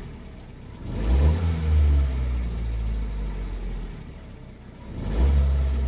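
2013 Ford Fiesta's engine revved twice from idle, once about a second in and again near the end, each blip easing back down toward idle. It is a rev test after the check-engine codes were cleared, to see whether the fault returns.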